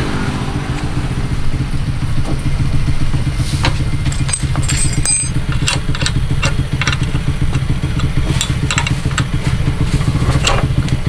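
A motorcycle engine idling steadily, with sharp metallic clicks and clinks from a spanner working the rear drum-brake nuts, most of them in two clusters, one a few seconds in and one near the end.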